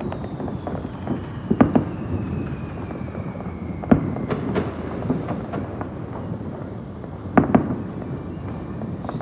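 Fireworks going off: scattered sharp bangs over a continuous low rumble, with a cluster of cracks about a second and a half in, a loud one near four seconds, and a close pair about seven and a half seconds in.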